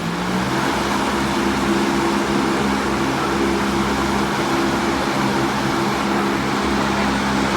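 Giant stage fan running, blowing a strong current of air: a steady rush of wind over a low, even motor hum that comes on at the start.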